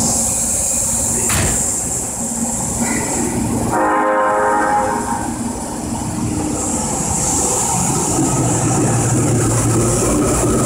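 Osaka Metro 10-series subway train at an underground platform. It sounds a short horn blast about four seconds in, then pulls away, its motor and wheel noise building over the last few seconds.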